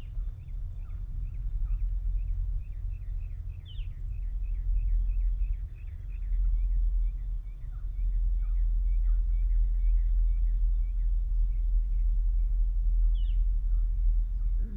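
Steady low outdoor rumble under a bird's rapid series of short chirps, a few per second, with a few louder, higher calls about four seconds in and near the end.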